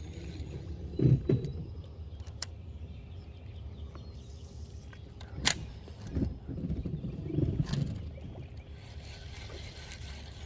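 Handling noise while fishing from a small boat: a steady low rumble with a few thumps, sharp clicks and knocks as the rod and reel are worked and cast.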